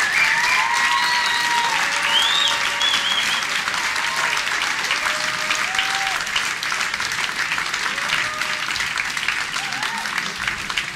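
Theatre audience applauding at the end of a live rock song, with shouts and whistles over the clapping. The applause eases off a little toward the end.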